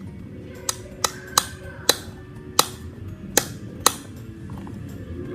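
A light switch flicked back and forth: seven sharp clicks at uneven intervals over the first four seconds, with background music underneath.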